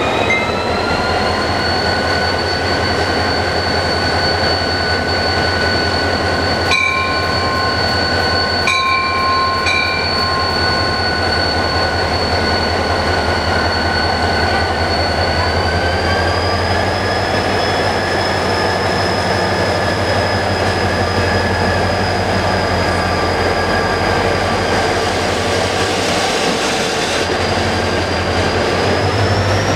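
Korail 7300-class diesel-electric locomotive pulling away under power: a steady engine drone with a whine that climbs in pitch at the start, again about halfway through and near the end. Two short high tones sound about two seconds apart a quarter of the way in, and the passenger cars roll past at the end.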